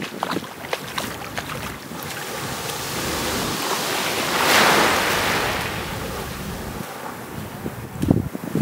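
Small waves breaking and washing up a sandy shore, swelling to a louder wash about halfway through, with wind buffeting the microphone.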